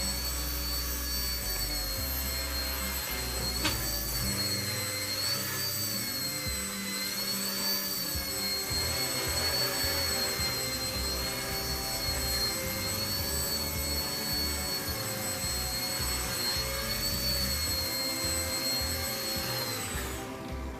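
Blade 70 S ultra-micro helicopter's small brushed electric motors whining steadily as it hovers, the pitch wavering slightly. The whine cuts off abruptly near the end.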